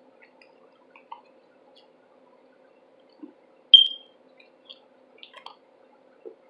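Close-miked wet mouth sounds from a mouthful of cornstarch worked with the lips closed: small sticky clicks and squishes. About halfway through comes one much louder, sharp click with a brief high ring.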